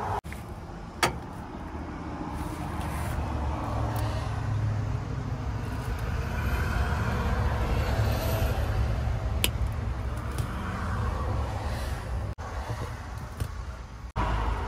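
Low rumble of motor vehicles that swells and eases over several seconds, with a sharp click about a second in and another past the middle.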